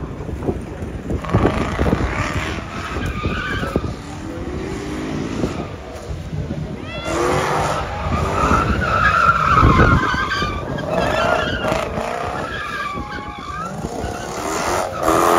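Drift car sliding through a corner, its engine revving up and down while the tyres skid and squeal, loudest a little past the middle.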